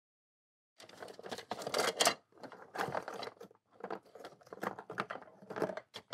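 Clear plastic bag of laser-cut model kit parts crinkling and rustling in irregular bursts as it is handled, starting about a second in.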